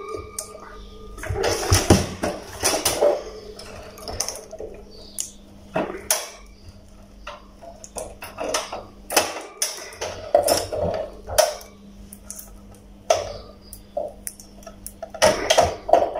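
Metal wire safety grille of an electric bug zapper rattling and clicking against its plastic housing as it is handled and unclipped, in a series of sharp, irregular clicks and clatters over a faint steady hum.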